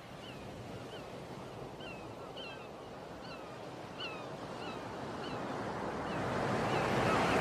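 Surf washing on a sandy shore, growing steadily louder, with a bird calling over it again and again in short, falling chirps.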